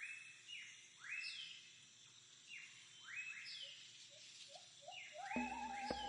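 Rainforest ambience: repeated rising bird calls over a steady background hiss, coming in clusters roughly every second or two. Music begins about five seconds in.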